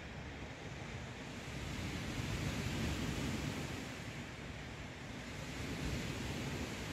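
Lake waves washing onto a sandy beach: a steady rushing that swells and eases every few seconds, with some wind.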